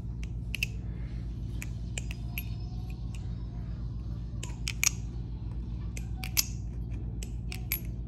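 Replicant balisong (butterfly knife) being handled and flipped: irregular sharp metal clicks and clacks as the handles swing and knock together, the loudest about five and six and a half seconds in. A steady low hum runs underneath.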